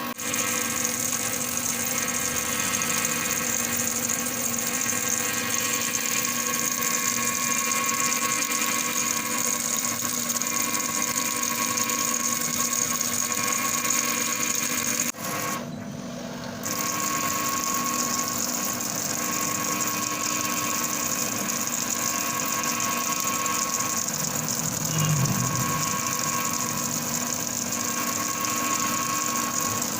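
CNC wire EDM machine running as it cuts a steel ball: a steady mechanical hum with a high hiss and several fixed tones. It briefly goes quieter and loses its hiss about halfway through, then resumes.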